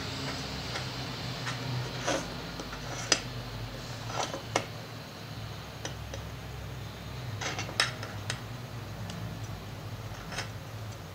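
Scattered small clicks and light metal taps as a rotary potentiometer and its wire are handled and soldered, over a steady low hum.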